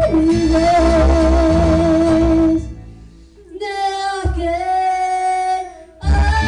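A woman singing into a microphone through PA speakers over a recorded backing track, holding long notes. The music drops away briefly about two and a half seconds in, and again just before the full backing comes back near the end.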